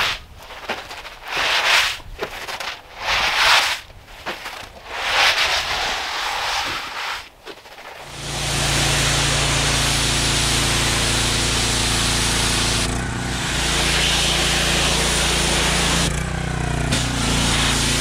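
Gusty bursts of wind on the microphone, then about halfway in a compact tractor's diesel engine comes in and runs at a steady speed with an even low hum, its pitch wavering briefly near the end.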